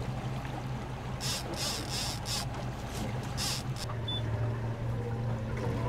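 Outboard motor running steadily at slow trolling speed, a constant low hum. Several short rustling bursts come between about one and four seconds in.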